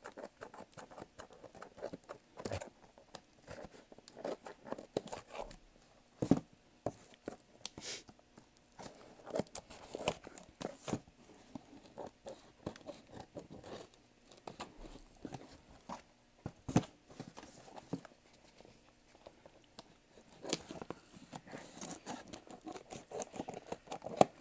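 Scissors cutting through the packing tape and cardboard of a shipping box: irregular snips and crackles, with a few louder snaps.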